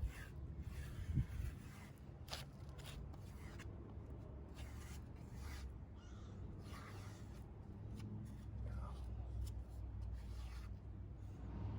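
Plastic spreader scraping and smearing two-part body filler, in short irregular strokes.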